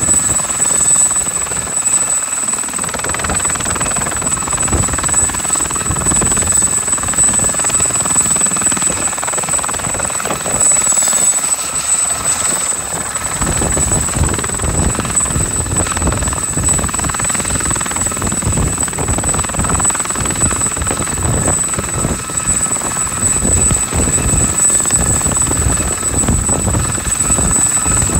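Aérospatiale SA342J Gazelle helicopter hovering just off the ground, its Turbomeca Astazou XIVH turboshaft running at hover power after a compressor wash with a steady high whine over the low beat and rumble of the rotor. The low rotor rumble grows stronger about halfway through.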